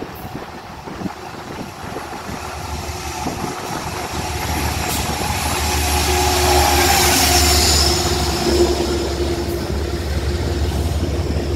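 Metro-North train hauled by a GE Genesis P32AC-DM diesel locomotive pulling into the station, growing louder as the locomotive approaches and passes about halfway through, with a steady low engine hum. As the coaches roll by and slow, a thin steady brake squeal joins in.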